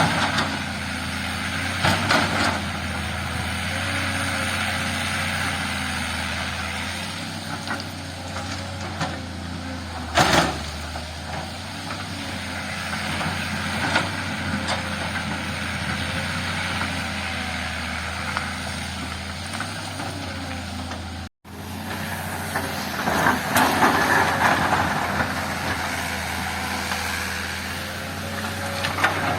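Heavy diesel earthmoving machine running steadily under load, with occasional clanks and knocks of metal and rock. The sound cuts out for a split second about two-thirds of the way through.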